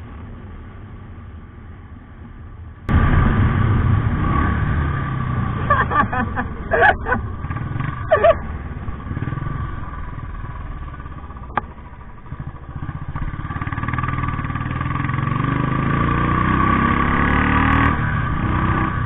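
Royal Enfield Bullet 350's single-cylinder engine heard from the handlebars while riding, suddenly much louder from about three seconds in. It eases off around twelve seconds in, then rises steadily in pitch as the bike accelerates hard.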